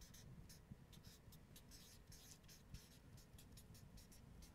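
Faint squeak and scratch of a marker pen writing on a flip-chart pad, in a quick irregular run of short strokes as the letters are formed.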